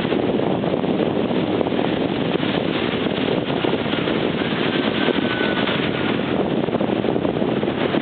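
Steady rushing noise of wind on the microphone and ocean surf at the shore, even throughout.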